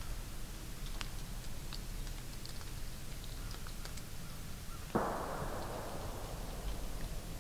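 A single distant gunshot about five seconds in: a sharp crack whose echo through the woods dies away over about two seconds. Faint scattered ticks and a low steady rumble lie underneath.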